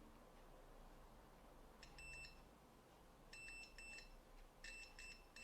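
Multimeter continuity beeper sounding in short, broken beeps as the probes touch a capacitor on the circuit board, starting about two seconds in and coming more often near the end. The beeper is set off by a low resistance of about 4 ohms, which is low but not a short.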